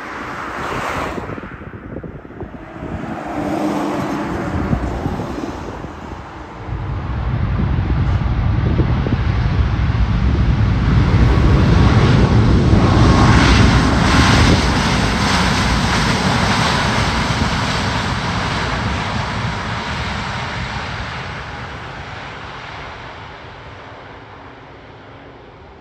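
Boeing 737 MAX 8 jet on its takeoff roll, its CFM LEAP-1B engines at takeoff thrust. The sound builds to a loud rumble as the jet speeds down the runway past, peaks about halfway through, then fades steadily as it moves away. Wind buffets the microphone for the first few seconds.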